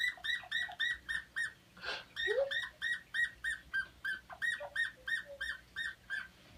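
Rubber squeaky dog toy squeezed over and over: a fast run of short, high squeaks of one pitch, about four a second, in runs like laughter.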